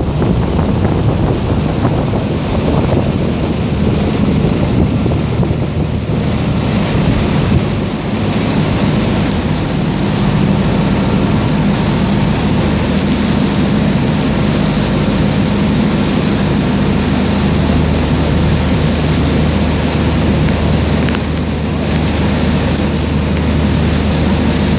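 Motorboat running steadily at speed: a constant low engine hum under the rush of water churning in the wake, with wind buffeting the microphone.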